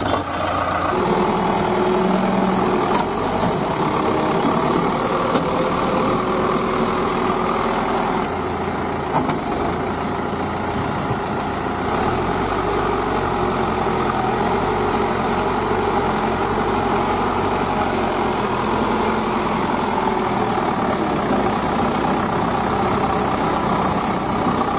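Vehicle engine running steadily at idle, with no change in speed.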